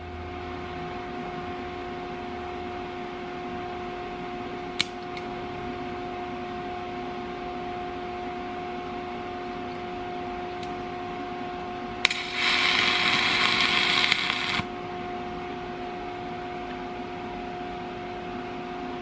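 A steady background hum runs throughout, with a single click about five seconds in. About twelve seconds in, a DC TIG welding arc strikes and hisses loudly for about two and a half seconds, then cuts off suddenly. With no shielding gas flowing, the arc burns the tungsten electrode away.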